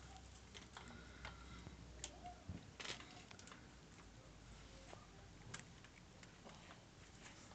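Pug puppy chewing a red plastic clothespin: faint, irregular clicks and ticks of teeth on plastic, with a short louder cluster about three seconds in.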